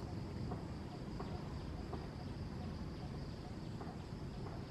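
Steady outdoor background: a constant low rumble with a faint high insect drone, and a few faint chirps scattered through it.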